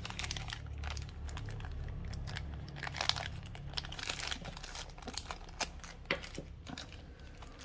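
Rustling and crinkling handling noise with scattered small irregular clicks, over a steady low hum.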